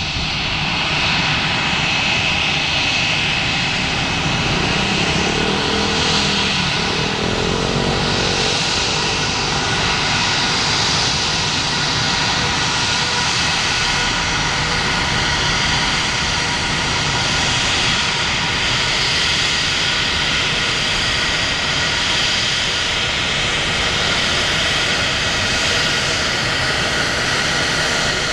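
Airbus A319-131 taxiing at low power, its two IAE V2500 turbofan engines giving a steady jet whine with several high tones held over a rushing hiss.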